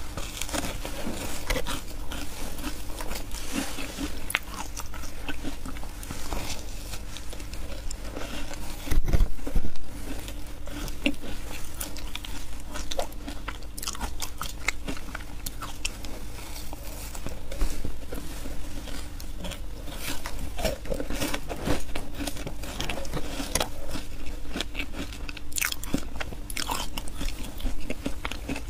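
Crunching and chewing of a frozen block of matcha shaved ice, with many crackling bites all through and a louder bite about nine seconds in.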